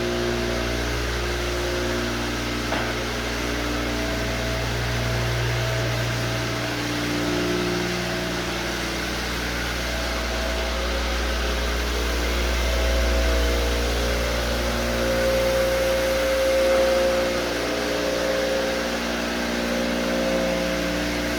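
Electric floor machine running steadily while screening a hardwood floor, abrading the worn polyurethane ahead of a recoat. It makes a low hum, with tones that come and go as it works.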